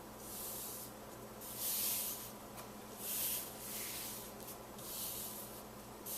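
Hand rubbing across paper in repeated short strokes, roughly one a second, pressing a freshly adhered cardstock layer down onto its backing.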